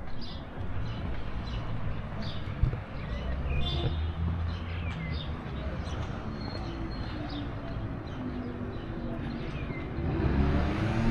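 Small birds chirping again and again with short, high calls, some gliding downward, over a steady low street rumble. Near the end a motor vehicle approaches and grows louder.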